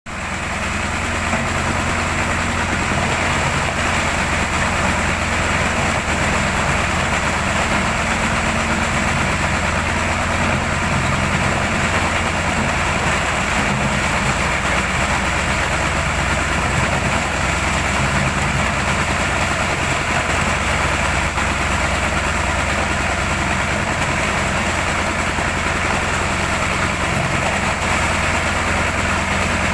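Coconut husk decorticating machine (coir fibre extractor) running steadily: a loud, continuous mechanical noise over a low, steady hum.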